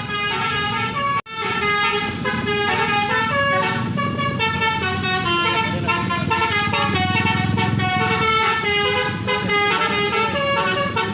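Basuri telolet bus horn playing a melody through roof-mounted trumpets: many-toned notes stepping from one pitch to the next without pause, over a low engine rumble. It cuts out for an instant about a second in.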